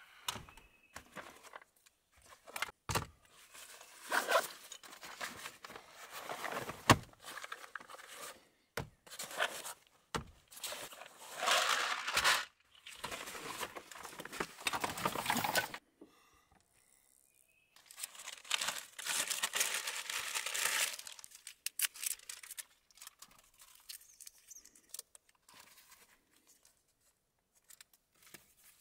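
Fabric tactical gear being handled, with rustling and tearing sounds in bursts and a few sharp clicks, the loudest about seven seconds in.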